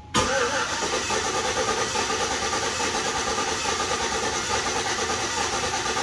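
GMC Envoy Denali's 5.3-litre V8 being cranked over on the starter for a compression test on cylinder 5. It starts abruptly and runs steadily with an even, slight pulse.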